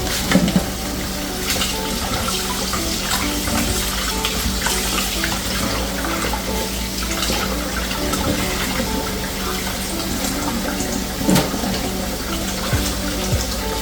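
Kitchen tap running steadily into a sink as raw chicken wings are rinsed in fresh water, with a couple of knocks near the end. Light background music underneath.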